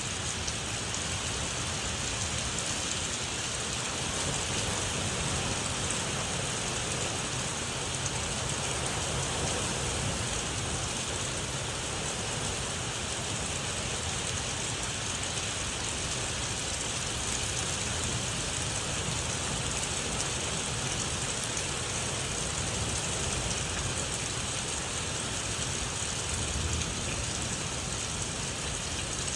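Steady rain falling hard, with a low rumble of distant thunder underneath.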